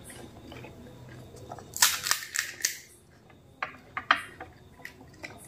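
Crisp fried phuchka (pani puri) shells cracking as fingers break holes in them: a quick cluster of sharp crackles about two seconds in, then a few single cracks around four seconds.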